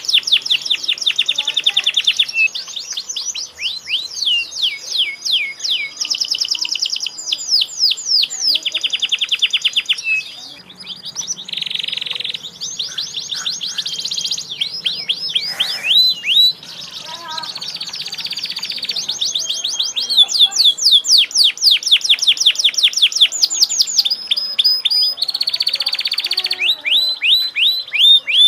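Canary singing a loud, nearly unbroken song of fast trills, each a quick run of repeated sweeping notes, switching to a new trill every second or two.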